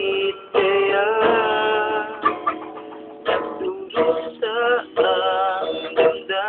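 A man singing a slow song while playing a small acoustic guitar, with long held notes that waver in pitch, in short phrases.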